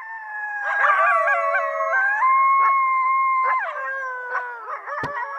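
A group of coyotes howling and yipping together, several voices holding long wavering notes at different pitches over each other. A single sharp knock sounds about five seconds in.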